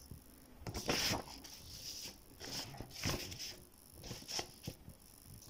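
Sheets of paper rustling and sliding on a table as they are shifted, in a few short rustles about a second in, around three seconds and past four seconds.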